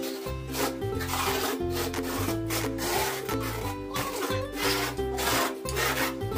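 Notched steel trowel scraping tile mortar across a concrete floor in repeated strokes, over background music.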